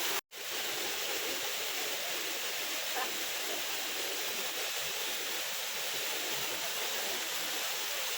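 Waterfall rushing as a steady, even hiss. The sound drops out briefly just after the start, then resumes unchanged.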